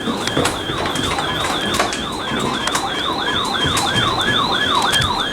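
Electronic siren in a fast yelp, a falling sweep repeating about three times a second, with scattered crackling clicks.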